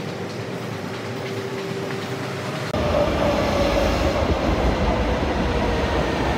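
Metro station hum by a running escalator, then, about three seconds in, a São Paulo metro train running along the platform: a loud low rumble with a motor whine that falls in pitch.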